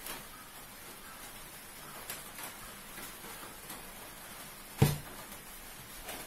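Quiet kitchen room tone with a few faint clicks of pots and utensils being handled, and one sharp knock about five seconds in.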